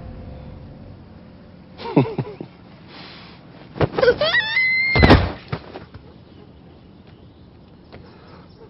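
A child cries out as he is shoved off a roof, then a heavy thump of his body hitting the ground about five seconds in.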